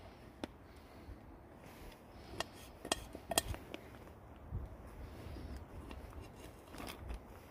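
A kitchen knife slicing tomatoes and tapping on the upturned base of a cooking pot used as a chopping board: a few sharp clicks as the blade meets the pot, bunched together a couple of seconds in and once more near the end.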